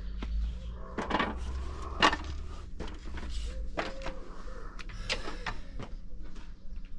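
A person climbing a wooden stepladder: irregular knocks and creaks from feet and hands on the rungs, the sharpest about two seconds in, over a low rumble of handling noise.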